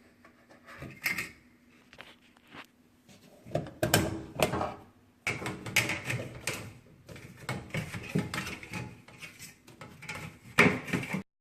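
Close-up handling noises from cleaning and wiping a plastic washing machine outlet box: irregular clicks, knocks and rubbing, with a sharp knock near the end.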